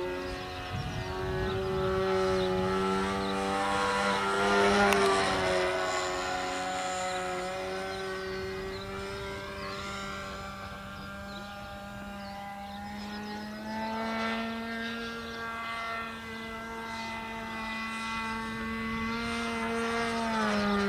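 RC model aeroplane flying overhead, its motor and propeller droning steadily at one pitch. The drone swells and bends in pitch as it passes about four seconds in, fades, then builds again near the end.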